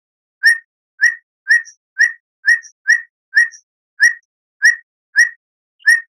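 A songbird's short, clipped call note repeated steadily, about twice a second, eleven times in all: a bird-lure recording meant to prompt caged birds to answer.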